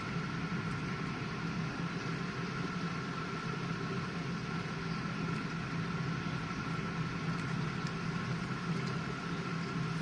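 GE dishwasher running mid-cycle: a steady motor hum with a faint, even high tone, unchanging throughout.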